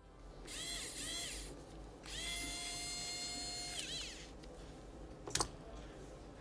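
Electric precision screwdriver backing out the small screws of a smartphone's midframe. It runs in two bursts, a short one and then a longer one of about two seconds, its whine rising as it spins up and dropping as it stops. A sharp click follows about five seconds in.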